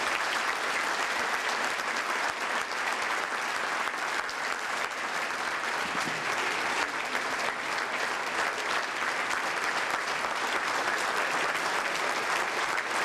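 Audience applauding steadily: a welcoming ovation for a speaker who has just been introduced.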